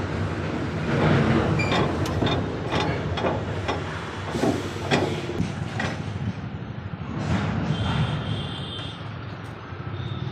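Workshop noise of body repair work: irregular knocks and clanks of tools striking metal over a steady low hum, with a brief high-pitched whine about seven seconds in.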